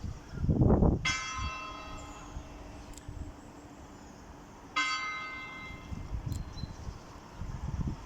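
A church bell tolling as the call to mass. It sounds two strokes about four seconds apart, one about a second in and one near the five-second mark, each ringing on and slowly fading. A low rumbling noise comes and goes underneath and is loudest just before the first stroke.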